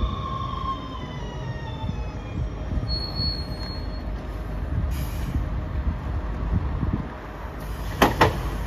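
Bombardier TVR guided rubber-tyred tram slowing to a stop: its electric traction whine falls in pitch over the first two seconds. A brief high squeal comes about three seconds in, and two sharp knocks come near the end.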